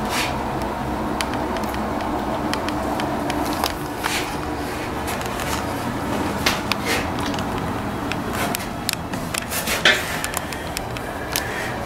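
Steady mechanical hum, with scattered light clicks and knocks, more of them in the second half.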